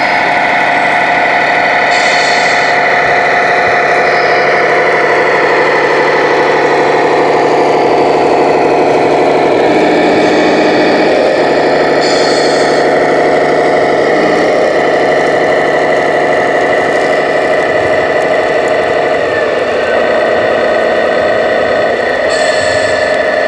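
Simulated diesel truck engine running steadily, played by the sound module of a 1:14-scale RC American-style logging truck, with a few short hisses along the way.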